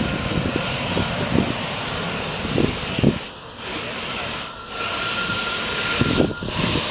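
Embraer E190 airliner's turbofan engines running as it rolls out along the runway after landing, with uneven low rumbling throughout. A faint steady whine comes in about four seconds in.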